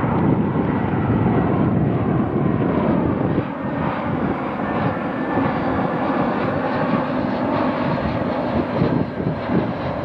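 Twin-engine Airbus A320-family jetliner flying over on final approach with its landing gear down: steady jet-engine noise.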